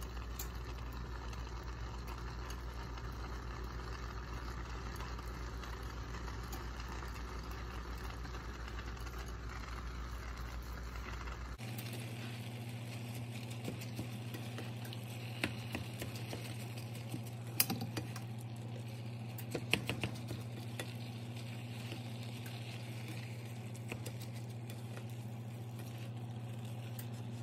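Ground chicken and water chestnuts cooking in a cast iron skillet with a soft, even sizzle over a steady low hum; a spoon stirs and scrapes through the mixture, with a few sharp clicks against the pan in the middle stretch.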